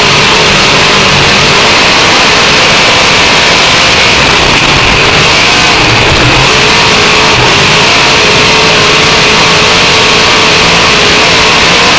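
Dirt-track race car's engine running hard at racing speed, heard onboard from the cockpit. It is loud and constant, its pitch wavering a little up and down with the throttle.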